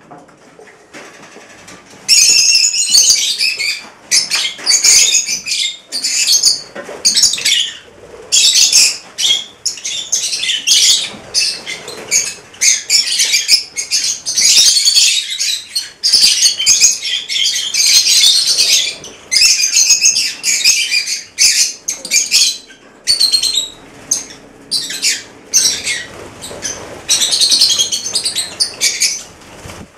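A flock of rosy-faced lovebirds calling: loud, high-pitched chattering in rapid overlapping bursts, starting suddenly about two seconds in and going on throughout, with wings flapping as birds fly down to feed.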